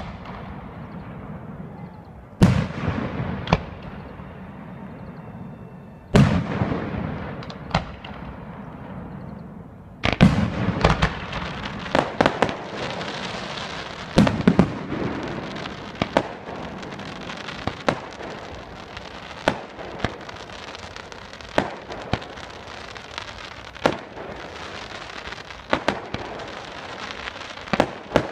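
Aerial fireworks shells bursting: single loud booms about 2.5 and 6 seconds in, each trailing off in a rolling echo, then from about 10 seconds a rapid run of bursts over continuous crackling.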